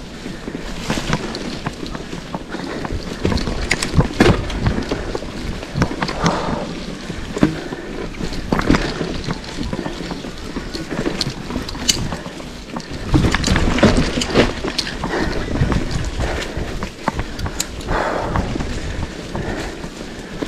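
Mountain bike riding over a rough dirt trail, with wind buffeting the microphone. Frequent sharp knocks and rattles come from the bike, with heavier bursts about four seconds in and again a little past the middle.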